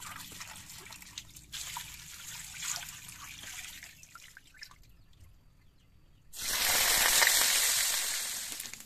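Water sloshing and trickling as chopped bitter melon pieces are rubbed and rinsed by hand in a basin. After a short quiet gap, a loud, even hissing rush starts suddenly about six seconds in and fades slowly.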